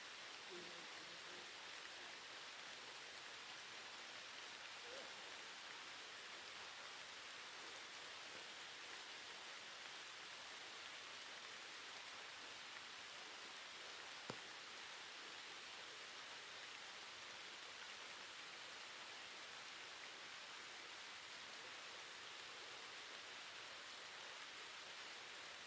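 Rain falling steadily, a faint, even hiss, with a single sharp click about fourteen seconds in.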